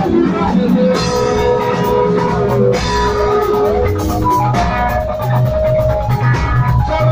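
Live band playing: electric guitar lines over bass guitar and a drum kit keeping a steady beat.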